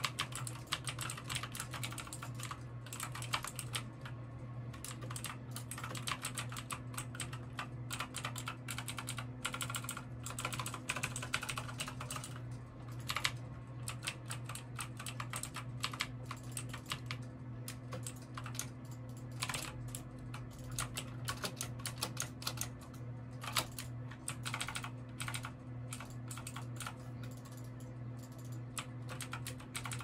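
onn gaming mechanical keyboard's key switches clacking in quick, uneven runs of keystrokes under gaming play, close to the microphone.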